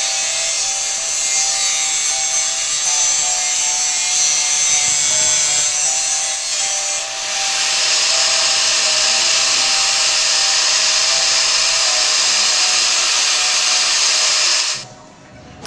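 Angle grinder cutting into a metal railing tube, a loud steady grinding that changes in tone about halfway through and stops about a second before the end.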